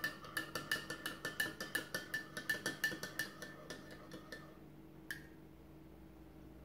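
Metal teaspoon clinking against the inside of a ceramic coffee mug while coffee is stirred, quick steady clinks with a ringing note, stopping about four seconds in. One last single clink follows about a second later.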